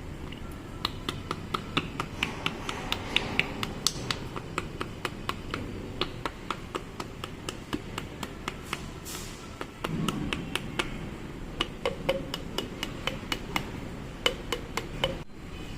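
Light metal-on-metal hammer taps, about three to four a second, each with a short ringing note, on parts of a Makita M8701 hammer drill under repair. There is a pause with a brief hiss and a dull thump about two-thirds of the way through, then the tapping resumes.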